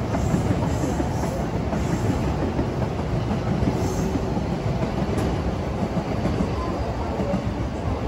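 Commuter train running along the tracks close by, a steady rumble with wheel clatter on the rails.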